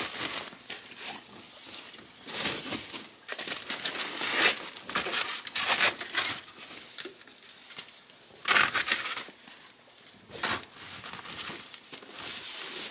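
Bubble mailers and cardboard mailers rustling and crinkling as they are handled and slid into a fabric tote bag, with several louder rustles.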